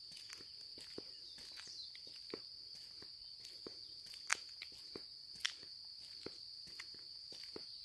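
Footsteps walking at an even pace, about two steps a second, over a steady high-pitched insect drone. Two sharper clicks stand out about four and five and a half seconds in.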